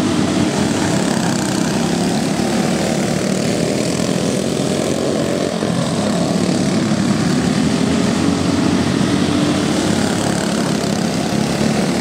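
A pack of racing go-karts with Briggs & Stratton Raptor engines running at full throttle. Several small engines are heard at once, overlapping, their pitch rising and falling as they come through the turns.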